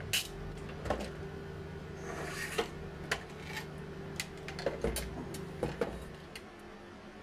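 Scattered sharp clicks and light knocks from handling tools and parts during an inverter repair, over a steady low hum. The clicks stop about six seconds in, leaving the hum.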